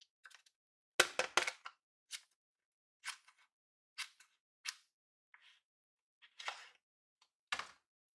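Scissors snipping through paper in a series of short cuts, about one a second, opening a homemade paper blind bag along its dashed top edge. The loudest snips come about a second in.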